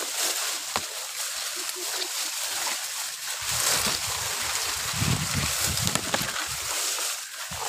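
Leaves and branches rustling and swishing as people push through dense shrubs on foot, with a few sharp snaps. A low rumble rises in the middle and fades about a second before the end.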